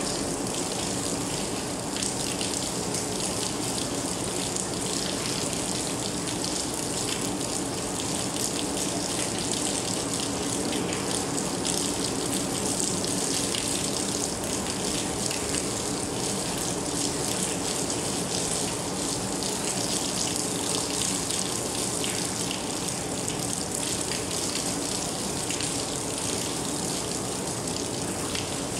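Steady rain falling, an even hiss flecked with the patter of individual drops.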